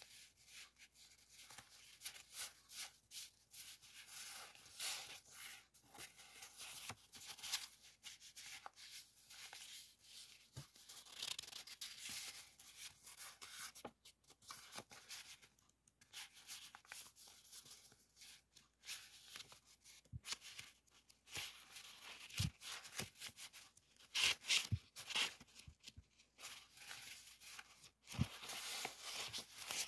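Stack of small printed paper sheets being handled and fanned through, the sheets rustling and sliding against one another in irregular scratchy bursts, with a few soft knocks near the end.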